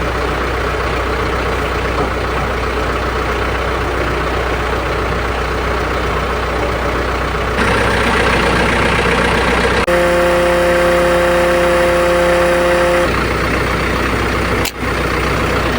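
A TYM tractor's diesel engine idling steadily. A steady whine joins in for about three seconds, some ten seconds in.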